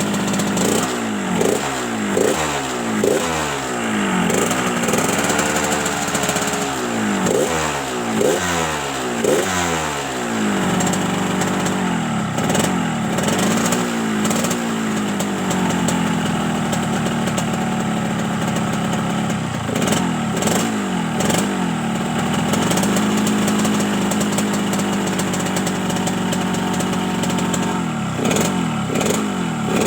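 Yamaha RX-King's two-stroke single-cylinder engine being revved in quick throttle blips, about one a second, with a few longer revs and stretches of idle in between. Its exhaust has the rough, snoring 'ngorok' tone.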